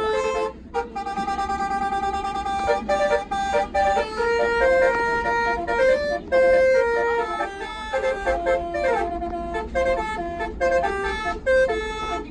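Bus "basuri" telolet multi-trumpet air horns playing a melody, note after note with one gliding drop in pitch partway through, over the low rumble of the bus running.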